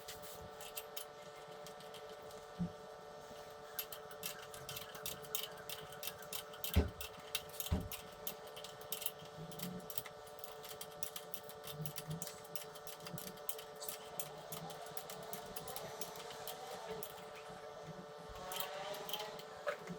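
Scattered light clicks and a few knocks from tools and parts being handled on a motorcycle, over a steady background hum.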